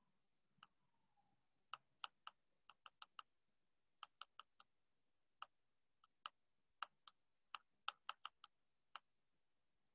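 About two dozen sharp, light clicks at irregular intervals, often in quick runs of three or four, over near silence.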